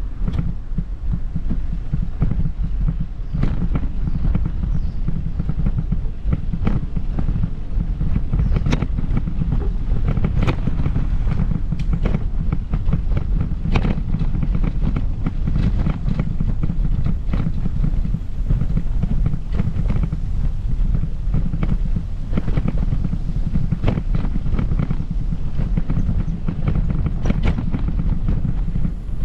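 Steady low rumble of wind buffeting the microphone, with scattered light clicks and taps, a few seconds apart at irregular intervals.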